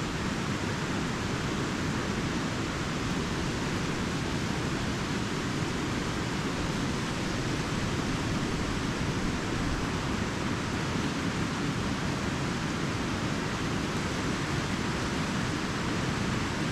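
Fast-flowing mountain river rushing steadily, a continuous even roar of water.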